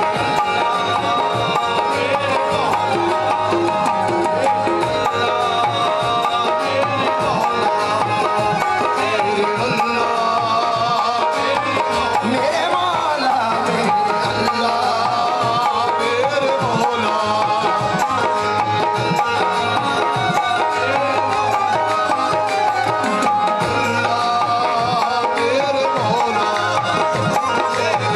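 Qawwali music: a male lead voice singing and gliding between notes over steady tabla drumming and held instrumental tones.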